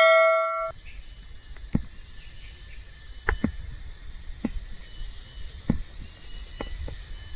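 A chime sound effect, like a notification bell, rings and fades out within the first second. After it comes quiet outdoor ambience with faint high chirps and a steady faint hum, broken by about eight short, sharp knocks spaced irregularly.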